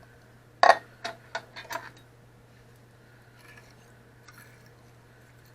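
A can of peas and carrots being emptied into a casserole dish: one sharp knock of the can, then three or four lighter taps within about a second.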